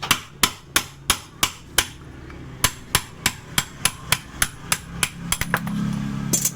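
Hammer strikes driving out the worn pulley bearing of a Yamaha NMAX's CVT pulley, the bearing behind the rough growling noise, about three sharp blows a second with a short pause about two seconds in. The hammering stops a little after five seconds, and a low hum rises near the end.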